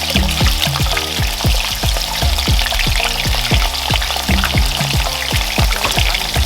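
Chicken pieces frying in hot oil in a pot, a steady sizzle, over Afrobeat background music with a kick-drum beat about three times a second and a bass line.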